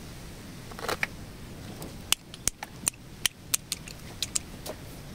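A brief rustle of bonsai branches and leaves about a second in, then about ten sharp clicks over two and a half seconds from small pruning shears snipping.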